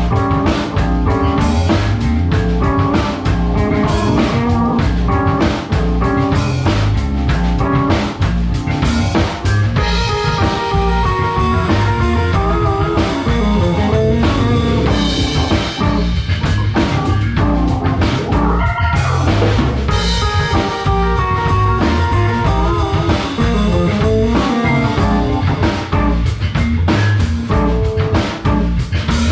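Instrumental fusion band playing live: a drum kit with dense, busy drumming, a hollow-body electric guitar and a Tobias electric bass.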